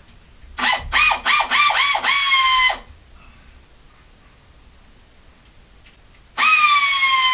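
Handheld power tool's motor run in several quick trigger bursts, then held for about half a second, each run dropping slightly in pitch as it goes. After a pause of a few seconds it starts again near the end and keeps running steadily.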